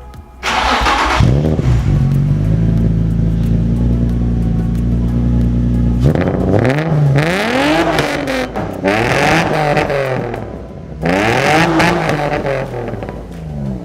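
Car engine running steadily, then revved about four times, each rev rising and falling in pitch.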